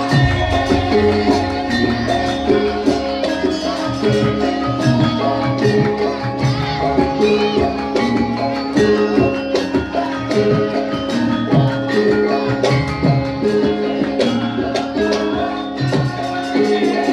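Live Javanese gamelan music, loud and steady: metallophones ringing out a melody over kendang hand drum strokes and jingling percussion.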